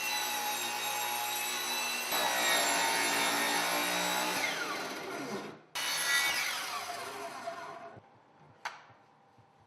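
Power saw cutting out the saddle opening in a duct wall, running steadily and then winding down in pitch about five seconds in. It starts again briefly and winds down a second time, and a single knock follows near the end.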